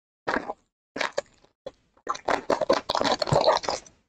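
Foil trading-card pack wrapper crinkling as it is peeled open by hand: two short crackles, then a longer stretch of crinkling in the second half.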